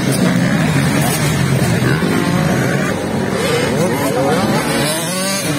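Several motocross bikes' engines revving on the dirt track, their pitches overlapping and repeatedly rising and falling as riders open and close the throttle.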